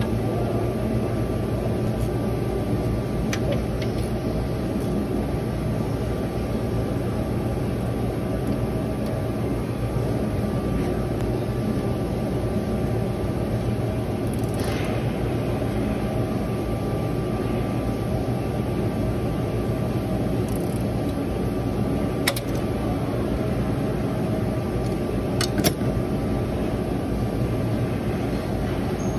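A steady mechanical hum with a faint constant whine in it, and a few brief sharp clicks, two of them near the end.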